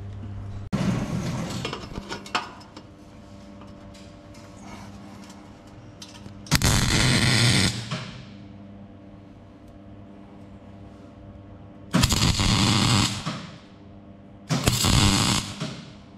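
Wire-feed (MIG) welder tack-welding a joint in a steel exhaust pipe: four bursts of crackling arc, each a second or two long. A steady low hum runs underneath.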